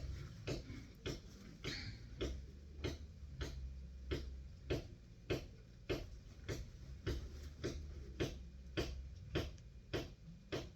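Steady, even ticking, about one and a half ticks a second, over a faint low hum.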